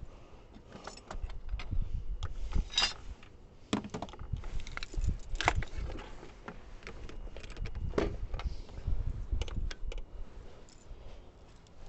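Scattered metallic clicks, clinks and knocks of tools or parts being handled, a few of them ringing briefly, over a low rumble.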